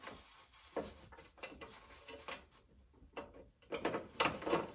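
Socket ratchet wrench clicking in short irregular runs as bolts are turned, with the loudest run near the end.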